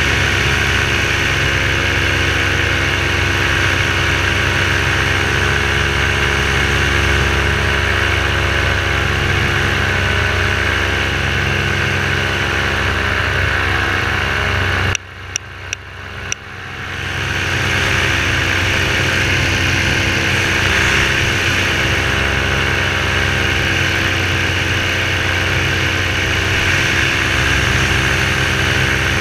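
Parajet V3 paramotor's two-stroke engine and propeller running steadily at power in flight. About halfway through, the sound drops out sharply for about a second and a half with a few sharp clicks, then swells back up to the same steady drone.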